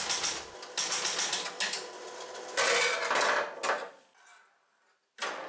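Bally 4 Queens electromechanical pinball machine clattering through the start of a new game: relays and stepper units clicking rapidly and score reels rattling as they reset. It stops about four seconds in, and the mechanical clatter resumes just before the end.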